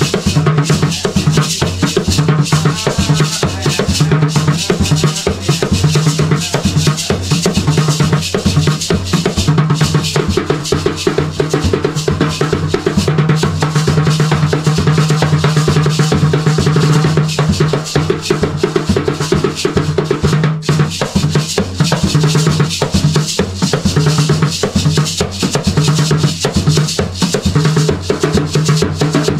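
Several Garifuna hand drums played together in a steady, driving rhythm, dense with rapid strikes and a deep, resonant bass tone.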